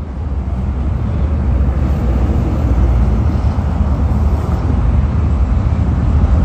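Steady, loud low rumble of road traffic by a highway roadside, with no single vehicle standing out.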